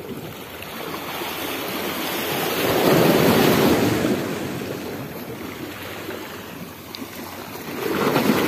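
Small sea waves washing against the shore rocks. The wash swells about three seconds in and again near the end.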